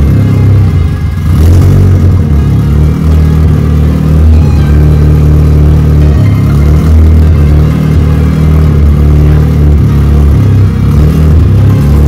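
Background music with a heavy, steady bass line that steps from note to note.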